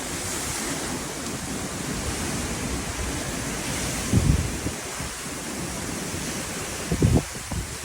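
Hurricane wind and rain hissing steadily, with gusts buffeting the microphone in low rumbles about four seconds in and again near the end.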